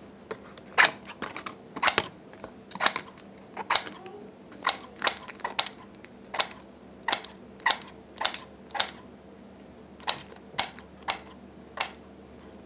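Pokémon trading cards being handled: a string of short, sharp card snaps and flicks, about two a second at an uneven pace.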